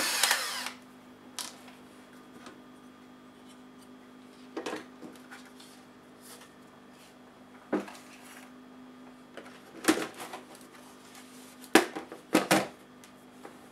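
Electric screwdriver whirring, stopping about half a second in. Then scattered clicks and knocks of the laptop's hard plastic case parts being lifted off and set down, loudest near the end.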